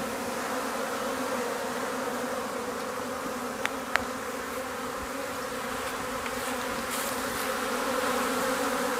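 A colony of honey bees buzzing in a steady, even hum around an open hive, growing a little louder near the end. Two short clicks come about four seconds in.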